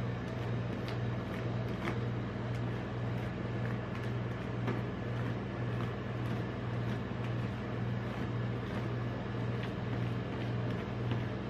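Steady low hum of a rolled-ice-cream machine's refrigerated steel plate, with scattered light clicks and scrapes as metal spatulas work the ice cream on the plate.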